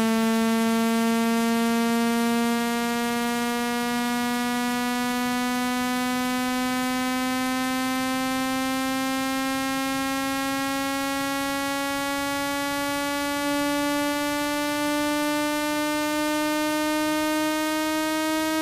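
Synthetic low buzzing tone, rich in overtones, rising slowly and steadily in pitch: a speaker-cleaning frequency sweep meant to vibrate water out of a phone speaker.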